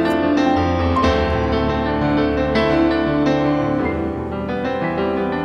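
Background piano music: a slow melody of notes struck every half second or so over sustained low notes.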